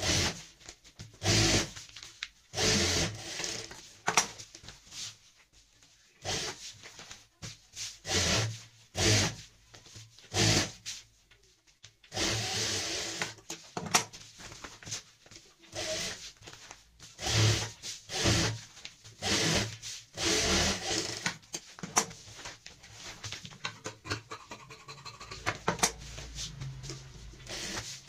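Crinkly rustling and rubbing of cotton fabric layered over a plastic woven-sack liner as it is pushed, smoothed and turned by hand, in irregular bursts.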